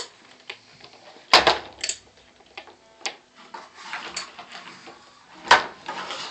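Hard plastic knocks and clatters as a toddler's plastic toy shopping cart is pushed and bumped about, with two sharp knocks about a second and a half in and again near the end, and lighter clicks between.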